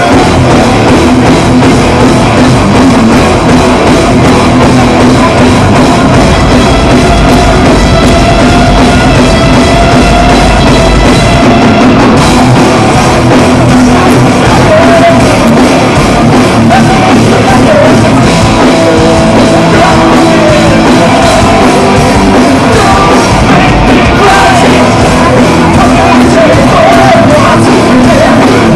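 Rock band playing live and loud: electric guitars, bass guitar and drums, with a singer's voice over them.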